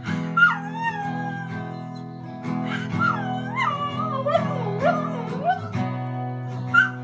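A puggle puppy howling along to a strummed acoustic guitar. First a long howl that falls in pitch and holds, then a second howl that wavers up and down in pitch and trails off about five and a half seconds in.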